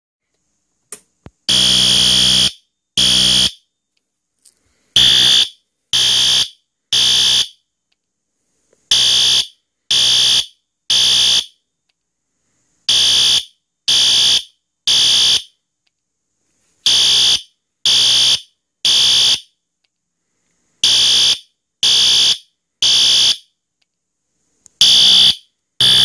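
A System Sensor SpectrAlert Advance fire alarm horn sounds loud blasts in groups of three, about a second apart, with each group repeating every four seconds: the temporal-three evacuation pattern. Two small clicks come just before the first blast.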